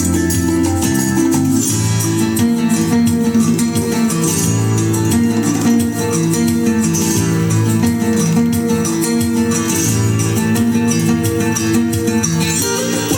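Music with plucked-guitar playing, reproduced through loudspeakers driven by a TPA3255 class-D amplifier with an NE5532 op-amp preamp.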